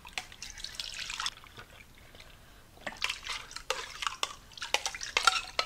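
Beef broth pouring and dribbling from a tin can into a slow cooker's crock, with small metallic clicks of a spoon against the can. The liquid sounds come in two spells, in the first second and again from about three seconds in.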